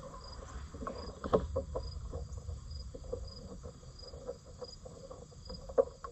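A cricket chirping steadily in an even, repeating pulse, with light clicks and taps of small parts being handled and taken off. The sharpest taps come about a second and a half in and near the end.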